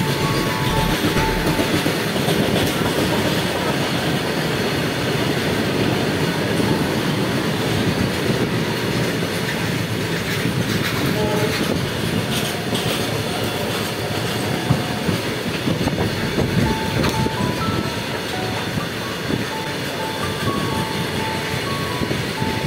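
Indian Railways passenger coach running at speed, heard at an open window: a steady rumble and clatter of wheels on rail, mixed with the noise of a freight train of covered open wagons running alongside on the next track.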